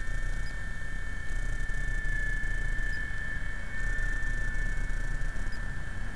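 Small electric RC helicopter's motor and rotor giving a steady high whine that wavers slightly in pitch, over a low rumble.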